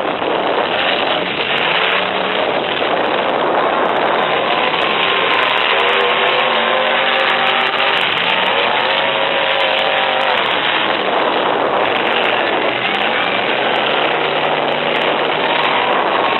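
Engines of several full-size trucks revving hard, their pitch rising and falling, over a dense wash of noise with frequent sharp clicks.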